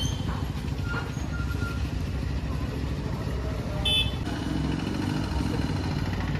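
Road traffic ambience of motorcycles, scooters and cars passing on the road below, a steady low rumble. A short high-pitched tone sounds just before four seconds in.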